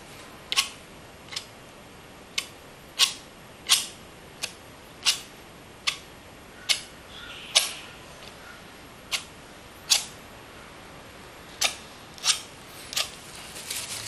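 Metal palette knife dabbing and tapping acrylic paint onto a canvas: a run of sharp, short clicks, unevenly spaced at roughly one a second, with a softer scraping just before the end.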